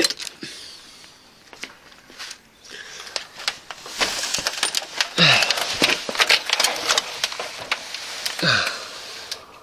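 Rustling, scraping and scattered knocks of a man crawling under a car on the ground, with two short falling grunts of effort.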